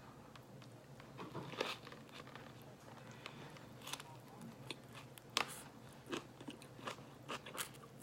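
Close-up mouth sounds of someone biting and chewing crisp food: irregular crunches throughout, with a few sharper, louder ones in the second half.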